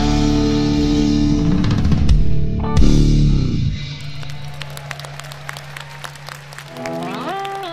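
Live rock band with lead electric guitar, drums and bass playing loud until a hard hit about three seconds in, then dying away to a sustained low note. Near the end an electric guitar note glides upward and holds, over scattered clapping.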